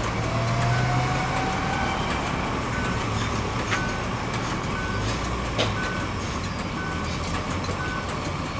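Gas pump dispenser running while a car's tank fills, a steady mechanical hum. A short high beep repeats about once a second, and there are two sharp clicks in the middle.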